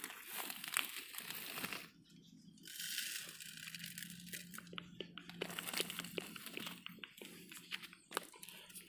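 Close-up rustling and crinkling of a leaf and a plastic-bottle fish trap being handled, with many small scattered clicks and crackles.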